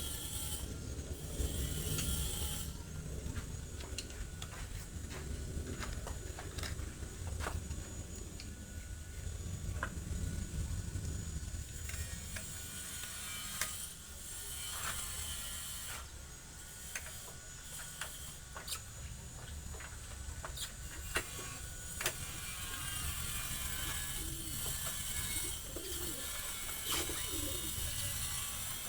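Scattered clicks and clinks of hand tools, like a ratchet and metal parts being handled during mechanical repair work. Pigeons coo near the end.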